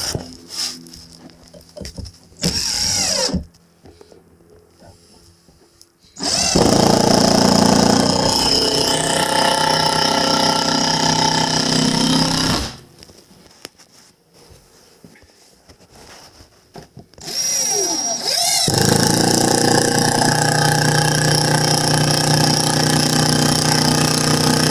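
Power drill boring into a wooden two-by-four: a brief spin-up about two seconds in, then two long steady runs of several seconds each with quiet pauses between them.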